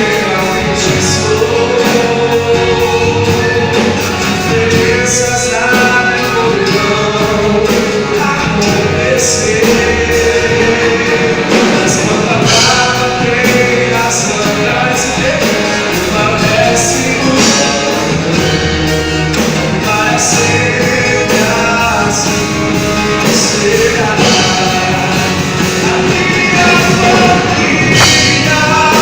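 Gospel band performing a song live, with singing over the full band.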